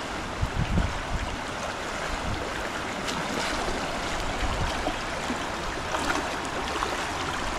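Rain-swollen stream rushing steadily, with a few low thumps about half a second to a second in.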